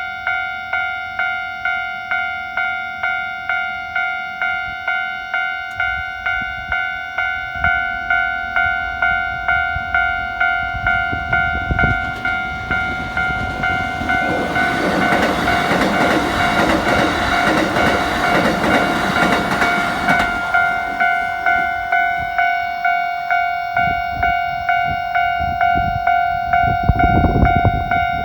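Level-crossing warning bell ringing a steady electronic two-tone ding, about one and a half strokes a second, while a Keikyu 1000-series train runs through the crossing. The train's wheel and motor noise swells and is loudest between about a third and two-thirds of the way in, and a low rumble rises again near the end.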